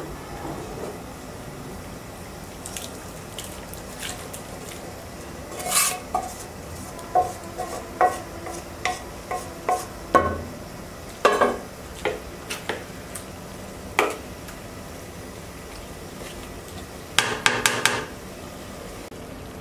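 A spoon knocking and scraping against a cooking pot as cooked beef is spooned into the nearly dry rice for tehari. There are scattered single clinks, then a quick run of clinks near the end.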